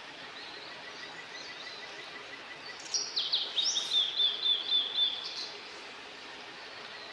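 A wild bird singing a short, loud phrase of quick repeated high notes about three seconds in, over a steady outdoor hiss.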